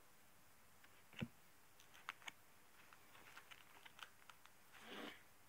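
Faint clicks and taps of baseball cards being handled and shuffled on a stack: one soft knock about a second in, then a scatter of light ticks.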